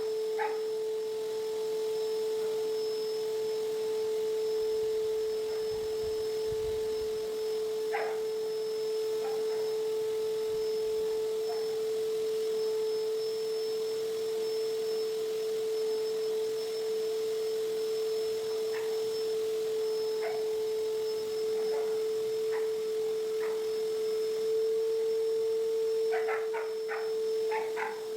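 Vacuum cleaner running with a steady, high-pitched motor whine. A few short knocks come through it, with a quick cluster near the end.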